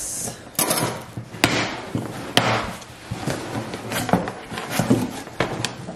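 A package being handled and opened by hand: rustling of packaging with a string of sharp knocks and taps.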